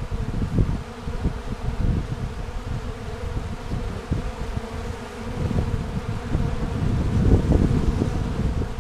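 A mass of honeybees buzzing over an opened hive, a dense hum that swells and fades and grows louder near the end.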